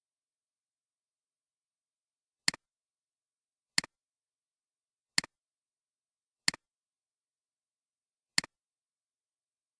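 Computer mouse clicking five times, each click a press followed at once by a softer release, with dead silence between.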